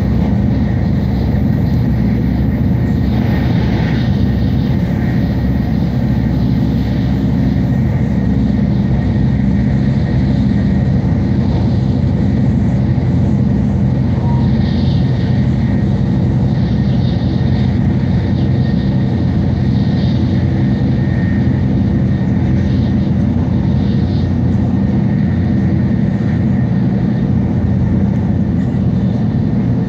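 Steady running noise inside a Shinkansen bullet train's passenger cabin: a constant low rumble and hum, with brief faint hissing swells now and then.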